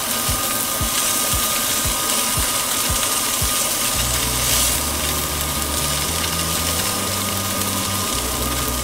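Salmon steaks sizzling in a dry nonstick frying pan, a fine steady hiss. Under it runs a low mechanical ticking, several a second, which gives way about four seconds in to a low, uneven drone.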